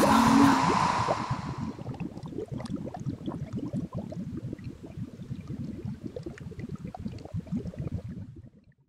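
A magic cauldron bubbling: a dense, irregular run of low pops and gurgles that fades out near the end. At the start a hiss and a short low held tone die away within the first two seconds.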